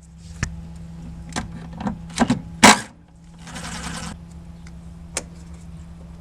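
Sharp knocks and clinks of tools being handled during engine work, the loudest about two and a half seconds in, followed by a brief hiss and one more click. A steady low hum runs underneath.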